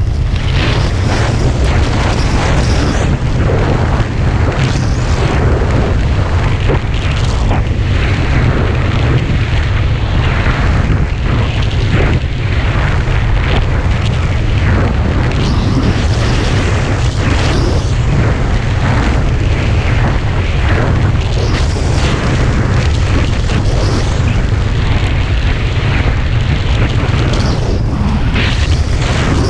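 Wind buffeting the camera microphone: a loud, steady low rumble with a rushing hiss above it that swells and ebbs in gusts.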